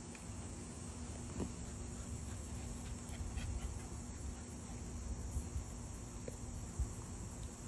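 Steady high chirring of an outdoor insect chorus, with a few faint soft knocks.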